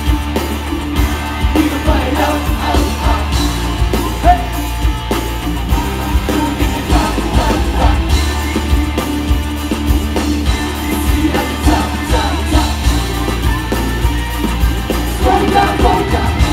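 Live pop-rock band playing: drums, electric guitars and lead vocals singing over a steady beat.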